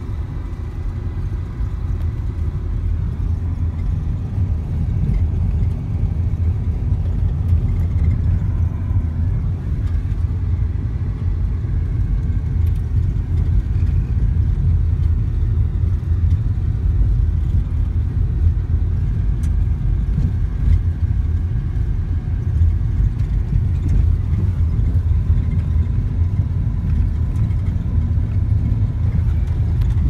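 Car driving along an unpaved gravel road, heard from inside the cabin: a steady low rumble of tyre, road and engine noise.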